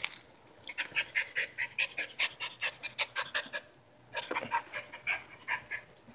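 Small dogs yipping: a quick run of short, high yips at about five a second, a brief pause, then a second run.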